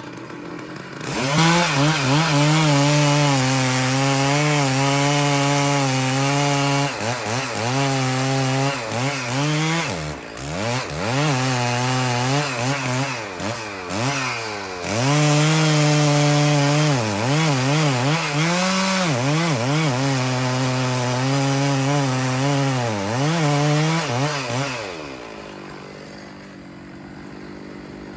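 Two-stroke chainsaw running at high revs while cutting wood, its pitch wavering and dipping briefly several times as the throttle eases and comes back. It winds down near the end.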